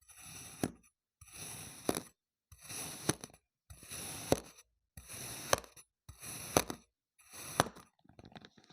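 A knife slicing through kinetic sand, over and over: each cut is a short scrape ending in a sharp tap as the blade meets the surface below, about once a second, seven times.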